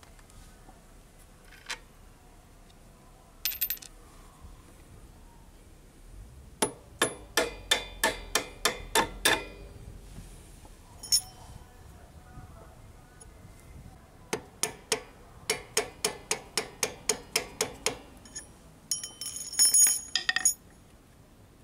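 Hammer blows on a steel bolt at a Suzuki AX100 motorcycle's swingarm, driving it through the bracket. The sharp, ringing metal strikes come about three a second in two long runs, with a few single knocks and a quicker cluster near the end.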